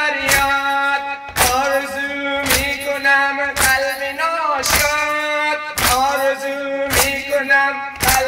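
A male reciter singing a Persian noha, a Muharram lament, through a microphone in a long held melody. Mourners beat their chests in unison with it, a sharp slap about once a second.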